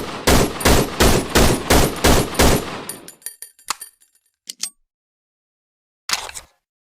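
1911 pistol firing a rapid string of about eight shots, roughly three a second, with a ringing tail after the last. A few short metallic clicks follow, and one more sharp report comes near the end.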